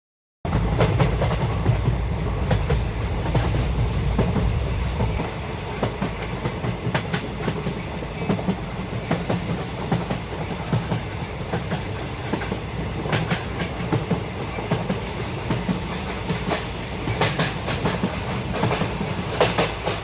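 Neko-Musume character train running past, its wheels clacking over the rail joints. A heavy low rumble fills the first five seconds, then it eases to a lighter run with frequent sharp clicks.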